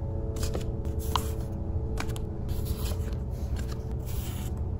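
Sheets of paper stickers dropped and slid onto a desk one after another: several soft papery swishes and rustles over a steady low hum.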